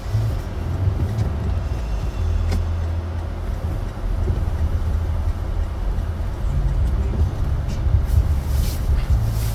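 Steady low rumble of a Toyota 4Runner TRD Off-Road driving on a snowy road, with a few brief hissing swishes.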